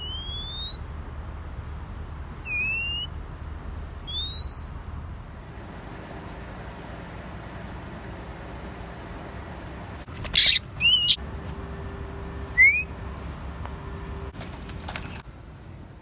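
Oriental magpie-robin giving single rising whistles a few seconds apart, with a loud harsh burst about ten seconds in.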